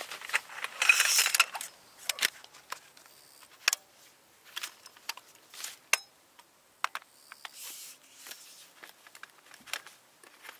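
Camping gear being handled: a string of small clicks, light clinks and knocks, with a louder rustle about a second in and a softer one later.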